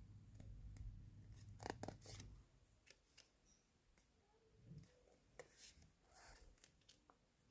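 Faint handling of Pokémon trading cards: a few soft clicks and short rustles as the cards are slid and flipped through, with a low hum fading out about two seconds in.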